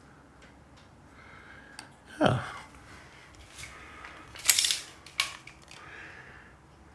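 Dice handled and rolled on a tabletop: a soft thump a couple of seconds in, then a short clattering rattle of dice about halfway through, followed by a single light click.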